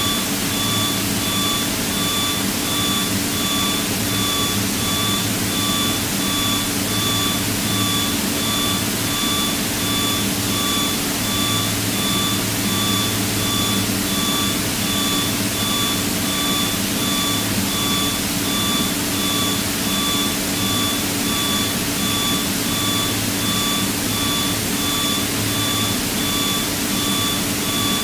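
Cockpit noise of a Piper PA-32 single-engine light aircraft in flight: the piston engine and propeller drone steadily, with a constant thin high-pitched whine over it.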